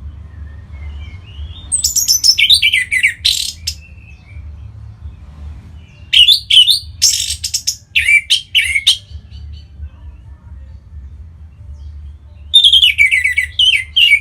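Orange-headed thrush singing in three bursts, each a run of quick, down-slurred whistled notes mixed with rapid scratchy notes, over a steady low hum.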